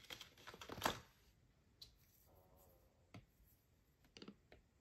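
Paper bills rustling in a clear plastic binder pocket for about the first second, then near silence broken by a few faint sharp taps of an Apple Pencil tip on an iPad screen.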